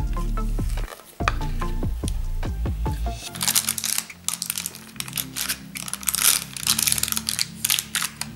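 A plastic spatula scrapes and presses thick chocolate truffle dough flat in a parchment-lined baking tin. From about three seconds in there is a dense run of quick, crackly scrapes, over soft background music.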